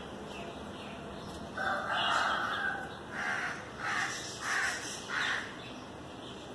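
Crows cawing: one longer harsh call about a second and a half in, then four short caws in a row over the next two seconds.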